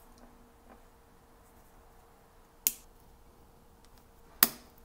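Two sharp plastic snaps about a second and a half apart, the second louder: a flat metal pry tool popping the clips of a SanDisk Ultra USB-C flash drive's plastic casing.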